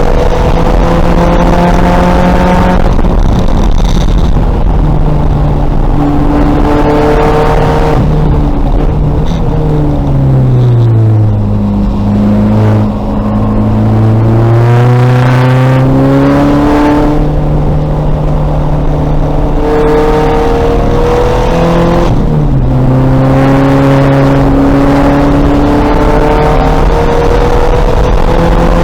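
2000 VW Golf race car's engine under hard acceleration, climbing in pitch and dropping back with each upshift. About ten seconds in the revs fall away as the car slows through downshifts for a corner, then it pulls hard again through the gears.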